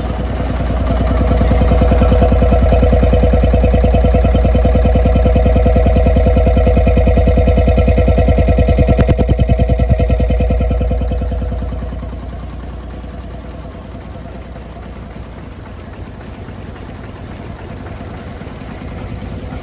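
Vintage single-cylinder stationary diesel engine running steadily with an even exhaust beat. It is loud close to the exhaust pipe, then softer after about eleven seconds as the sound draws away.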